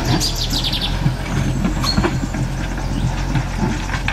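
Backhoe loader's diesel engine running under load as its front bucket pushes and scrapes through dirt and stones, with irregular clanks and rattles of rock and metal over the engine.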